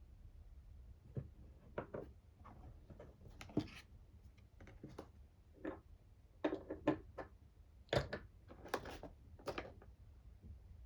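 Irregular light taps, clicks and rustles of small items and packaging being handled, a dozen or so short knocks spread unevenly, the busiest stretch in the second half.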